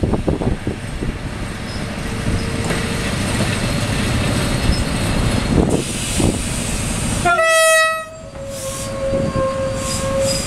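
SU42 diesel locomotive approaching with its engine rumbling, growing closer. About three-quarters of the way through it sounds a short, loud horn blast, followed by a quieter, steady lower tone for about two seconds.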